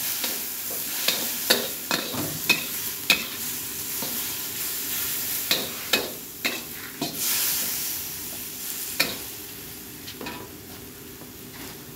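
Beef slices sizzling in a hot steel wok while a metal spatula stirs them, with sharp clanks and scrapes of the spatula against the wok every second or so. The knocks thin out and the sizzle gets quieter near the end.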